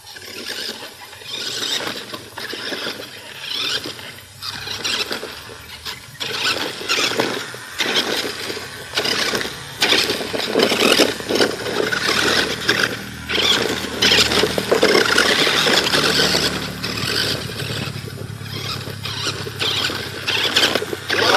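Toy RC rock crawler driving: its small electric motor and gearbox whine in short, irregular spurts as the throttle goes on and off, then run more continuously through the second half.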